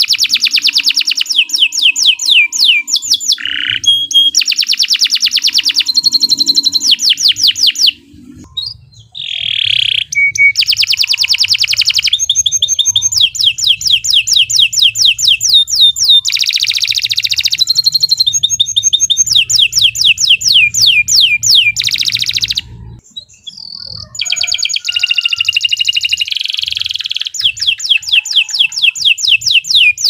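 Domestic canary singing a long, continuous song made of fast trills of rapidly repeated high notes, with short breaks about eight and twenty-three seconds in.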